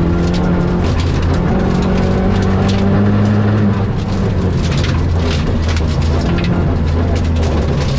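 Rally car engine running hard at a fairly steady pitch, dipping briefly about halfway, with a dense rattle of gravel and stones pelting the car's underside.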